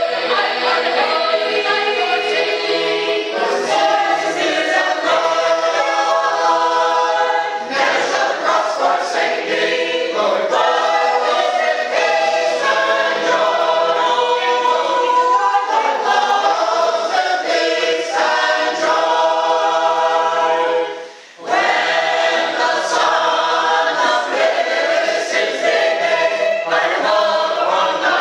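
Unaccompanied Sacred Harp shape-note singing by a mixed group of men's and women's voices, in several parts at once. The singing is continuous, with one short break for breath about twenty-one seconds in.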